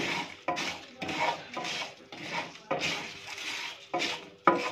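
A wooden spatula stirring and scraping whole spices and seeds as they dry-roast in a nonstick pan. The seeds rattle and rasp against the pan in repeated strokes, about two a second.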